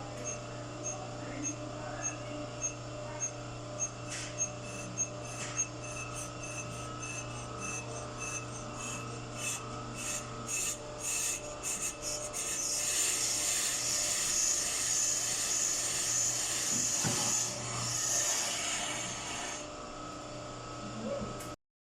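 A steady machine hum with faint regular ticks and scattered sharp clicks, then several seconds of louder rasping, scraping noise. It all cuts off suddenly near the end.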